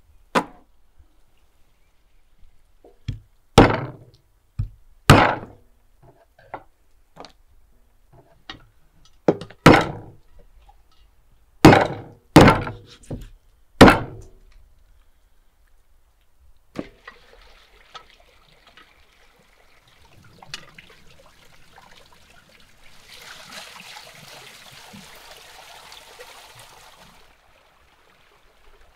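Heavy meat cleaver chopping through beluga sturgeon heads on a wooden stump block: about ten sharp chops over the first fourteen seconds. After that, water running over a stone spring trough, louder for a few seconds near the end.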